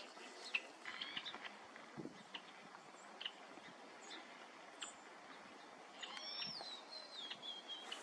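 Small songbirds calling faintly: scattered short, high chirps, and from about six seconds a longer song phrase that slides down in pitch and then levels off.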